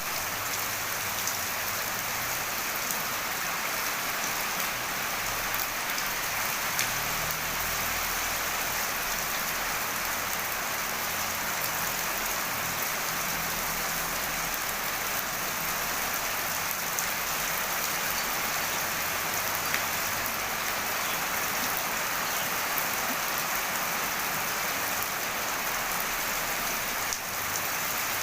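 Heavy rain falling steadily with wind, a dense even hiss with scattered drop ticks and a low rumble underneath.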